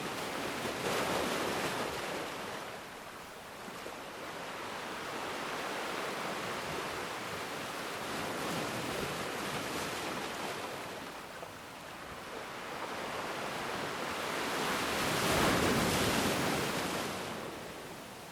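Ocean waves breaking and washing in, a steady rush of surf that swells and ebbs slowly, with the biggest wave near the end.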